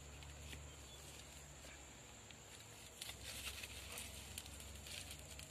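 Faint rustling and light crackling as dry coconut husks and shells are laid onto a small wood fire, over a low steady hum.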